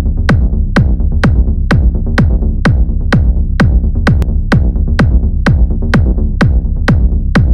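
Electronic dance music with a steady kick drum, about two beats a second, over a deep bass line.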